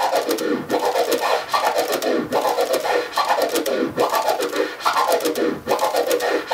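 Turntable scratching: a record sample is pushed forward and pulled back by hand while the crossfader clicks it on and off. Each stroke is cut into five sounds in a steady, repeating 1-2-3-4-5 rhythm, a four-click lo-hi orbit, and the chopped sample glides up and down in pitch with each stroke.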